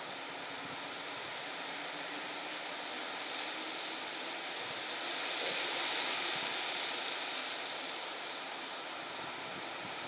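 Strong wind rushing steadily through the trees, swelling louder about halfway through and then easing back.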